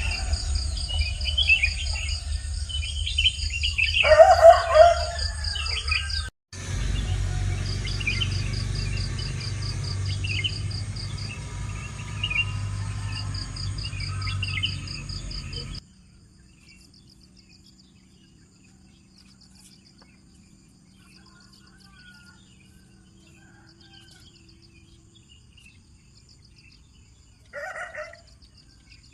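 Morning village birdsong: assorted birds chirping over a steady pulsing insect trill, with a rooster crowing about four seconds in. A low rumble underlies the first half and drops away about halfway through, leaving the quieter insect trill and birds, with one more short call near the end.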